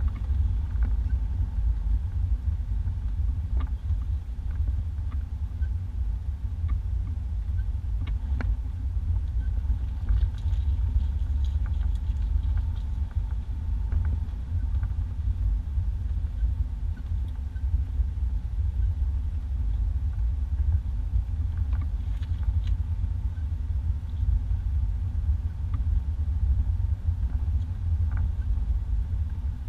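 Isuzu Trooper 4x4 driving slowly over a bumpy dirt two-track: a steady low rumble of engine and tyres, with a few light knocks and rattles as it goes over bumps.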